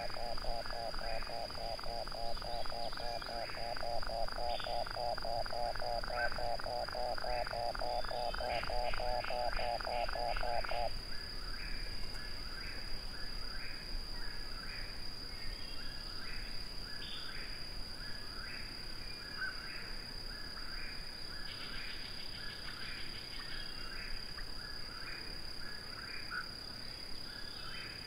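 Eastern whip-poor-will singing, its short song phrase repeated over and over, about once a second. For the first eleven seconds or so a louder, lower call pulses rapidly beneath it, about four pulses a second, then cuts off suddenly. A steady high-pitched whine runs underneath throughout.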